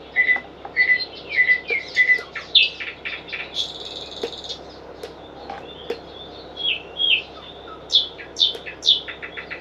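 Recorded birdsong played through the small built-in speaker of a KIVOTAC star projector alarm clock as one of its nature sounds: a run of short repeated chirps, a brief buzzy trill, then quick whistled notes that fall in pitch near the end.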